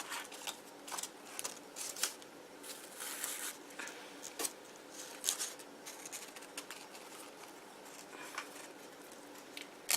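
Close, irregular scratchy rustles and small clicks of hands handling sewing thread and cotton wool, wrapping the thread around.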